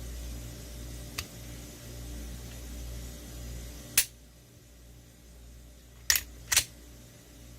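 Sharp clicks of Glock 19 pistol parts being handled during tabletop disassembly: a faint one about a second in, a loud one about halfway, and two more close together near the end, over a low steady hum that fades after the loud click.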